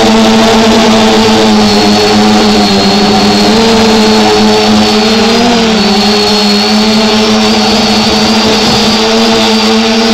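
A small drone's electric motors and propellers whining steadily, picked up by its own onboard camera, the pitch rising briefly about halfway through.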